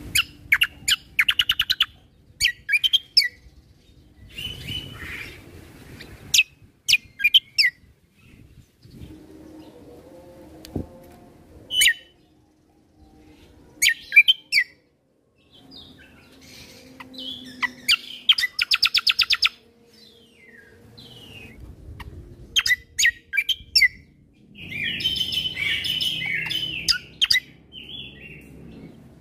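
Kecial kombo (cucak kombo) songbird singing in short bursts of rapid, sharp, high trills and chattering notes, with brief pauses between phrases and a longer run of dense chatter near the end.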